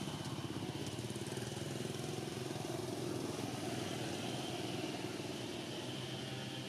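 A small engine running steadily at an even, low idle-like pitch, with a faint high steady whine above it.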